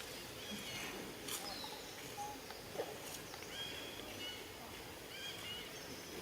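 Short high-pitched animal chirps, several in quick succession in the second half, over a steady outdoor hiss, with a sharp click about a second in.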